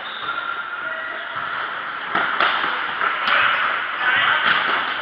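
Futsal play in a large indoor sports hall: a few sharp kicks and thuds of the ball, about four in the second half, echoing over a steady din of play.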